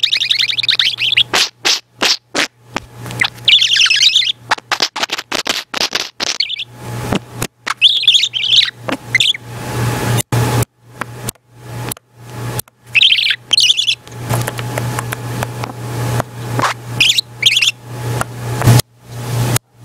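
Budgerigar warbling and chattering close to the microphone in several short bursts, among many sharp clicks and taps.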